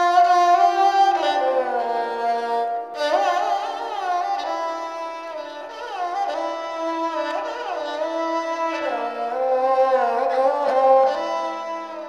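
Sarangi solo, bowed: long held notes joined by sliding glides and quick ornaments. The sound begins to fade out near the end.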